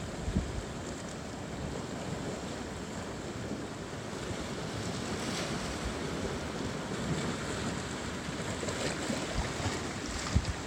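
Ocean surf washing over lava rocks in a steady rush of water. Wind buffets the microphone in low thumps shortly after the start and again near the end.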